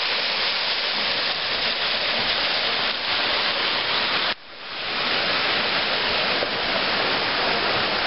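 Waterfall pouring into a rock pool: a steady, full rush of falling water. It drops out suddenly a little after four seconds in, then swells back.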